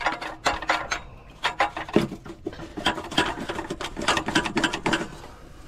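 Hand ratchet wrench clicking in quick runs as a fastener that has just been broken loose is turned off, with a faint steady hum underneath.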